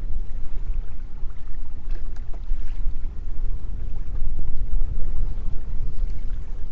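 Wind buffeting the microphone in a low, uneven rumble, with choppy water slapping against a bass boat's hull.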